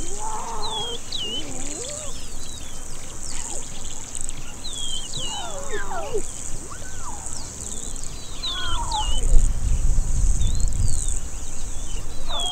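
Small lion cubs giving a few high, descending mewing calls over a steady buzz of grassland insects and repeated short bird chirps. A low rumble from about 9 to 11 seconds in is the loudest sound.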